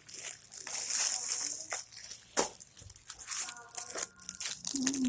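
Plastic packaging crinkling and rustling as the items are handled, with a sharp click about two and a half seconds in.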